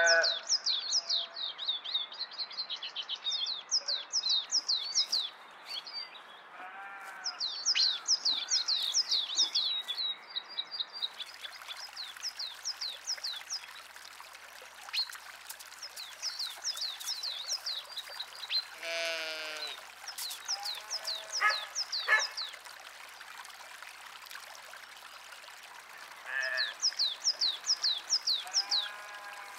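Sheep bleating several times, one call near the start and others scattered through, over bird song made of quick runs of high, falling chirps that repeats on and off throughout.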